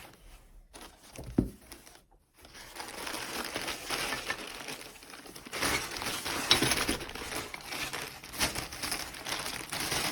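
Rustling and crinkling of wrapping being handled and pulled open around an old hand-cranked meat grinder, with many small clicks, starting after a single knock and a brief pause.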